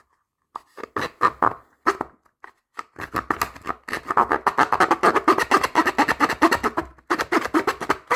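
Hand-held blade sawing back and forth into a case's edge: a few scattered strokes at first, then rapid, continuous rasping strokes from about three seconds in, with a short break near the end.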